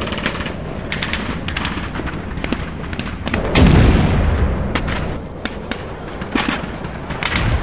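Battle-reenactment gunfire: irregular sharp shots from blank-firing rifles, some near and some farther off, with a heavy pyrotechnic explosion about three and a half seconds in whose low boom rolls on for about a second.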